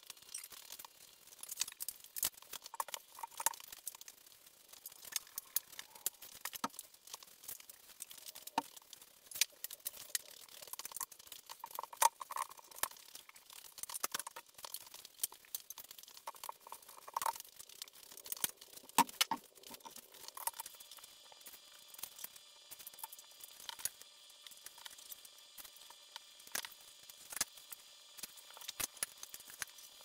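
Scattered light knocks and clatters of dry pine boards being handled and set down in a stack. A faint steady hum joins about two-thirds of the way through.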